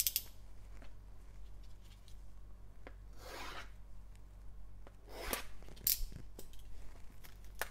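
Cellophane shrink-wrap on a trading-card box being scraped and slit open with a cutting tool, with plastic rubbing. It comes as a few short scratchy strokes, the longest about three seconds in, and small clicks.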